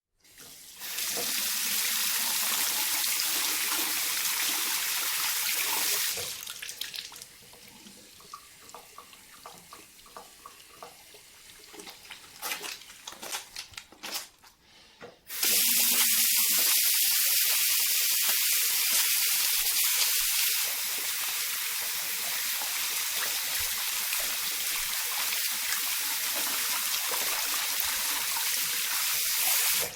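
Tap water running into a sink, with hands being washed. The tap runs steadily, stops about six seconds in, giving way to quieter rubbing and splashing of wet hands, then turns on again about fifteen seconds in and runs until it shuts off right at the end.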